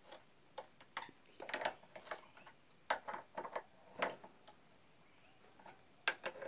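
Faint, irregular metal clicks and taps in small clusters as a motorcycle front brake caliper's mounting bolts are handled and an L-shaped wrench is fitted onto a bolt head.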